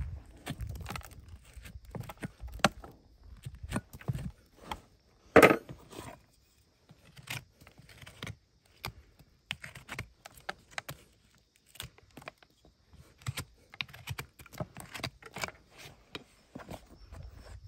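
Farrier's hoof knife scraping and cutting packed dirt out of the sole of a horse's hoof: irregular short scrapes and clicks, with one louder knock about five seconds in.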